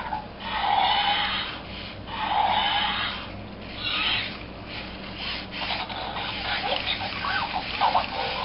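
Zoomer Dino robot dinosaur toy making electronic dinosaur calls through its small speaker: three breathy, swelling calls about a second long each, then shorter, quicker chirp-like sounds near the end.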